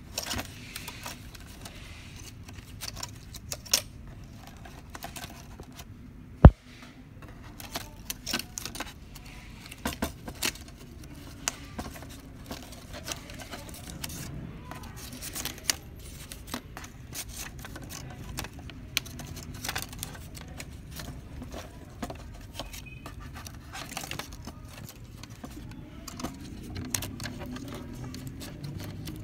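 Scattered clicks, taps and light rattles of hands working a laser printer's plastic scanner housing and flat ribbon cable while the broken scanner cable is swapped, with one sharp, loud knock about six and a half seconds in.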